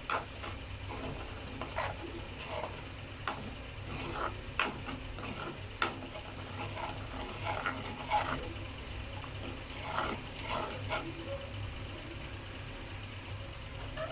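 A spoon stirring jaggery in a little water in a kadai to melt it, scraping and clinking against the pan in irregular strokes about once a second. A steady low hum runs underneath.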